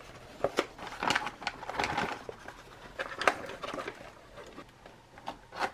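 A retort pouch of cooked rice crinkling and rustling as hands squeeze and shake the rice out into a paperboard tray, with irregular sharp crackles of the pouch material.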